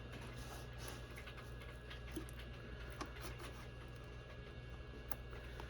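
Faint scattered clicks and light scratches of a tool being worked through the adhesive around the iMac's display glass, over a steady low hum.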